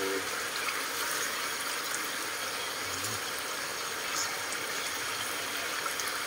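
A wok of catfish braising in soy sauce, simmering on a gas stove: a steady, even hiss.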